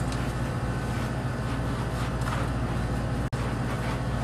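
Steady low machine hum, with faint scrubbing of a rubber curry mitt worked through a dog's lathered coat; the sound drops out for an instant about three seconds in.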